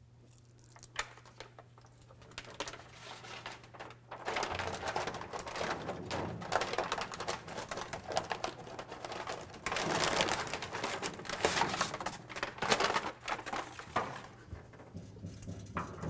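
Rustling and crinkling of a sheet of butyl-rubber sound-deadening mat and its paper backing, handled and pressed by hand against a car's roof panel. It is faint for the first few seconds, then a dense crackling rustle runs from about four seconds in to near the end, when it dies down.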